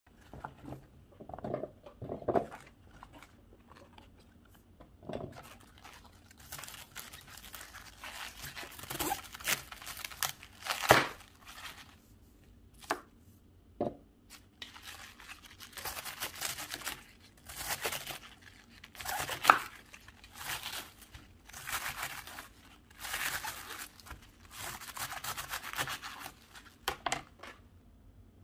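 Fresh cabbage and bok choy leaves being torn, snapped and cut by hand on a plastic cutting board: irregular crisp ripping and crunching bursts, each lasting up to about a second, with a few short sharp strokes between them.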